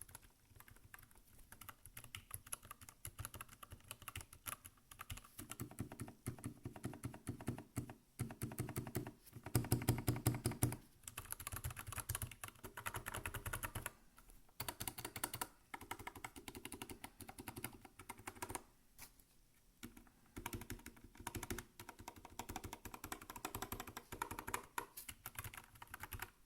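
Rapid typing on a Motospeed CK61 mechanical keyboard with clicky Kailh BOX White switches, its thick keycaps damped by white silicone O-rings. Dense runs of key clicks, the loudest flurry about ten seconds in, with brief pauses around fourteen and twenty seconds in.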